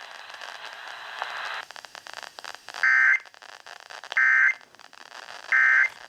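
Weather radio hiss and crackle, then three short two-tone digital data bursts about 1.4 s apart, much louder than the hiss. They are the Emergency Alert System (SAME) end-of-message codes closing the severe thunderstorm warning broadcast.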